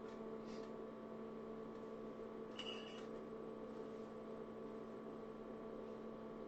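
Steady electrical hum from the powered-up IBM PS/2 Model 85 bench setup during its power-on self-test, with a short faint high tone about two and a half seconds in. No sound of the SCSI hard drive spinning up, which points to a dead drive.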